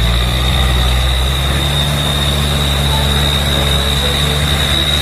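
Light dump truck's engine running steadily while its raised bed tips out a load of soil, with a steady high-pitched whine over the engine note.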